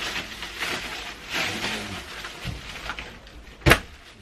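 Plastic rubbish bags rustling in irregular patches as they are gathered up and lifted, with a single sharp knock near the end.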